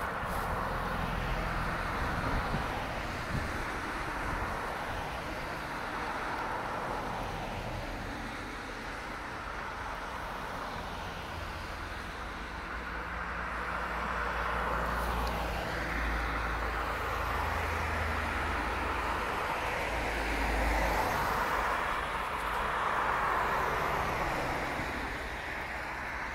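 A line of cars passing one after another on a wet road: steady tyre and engine noise that swells as each car goes by, loudest near the end.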